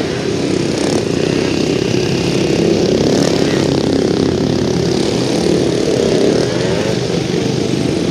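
Motorcycle engine revving up and down again and again, its pitch rising and falling in quick sweeps as the bike accelerates hard and brakes between tight turns.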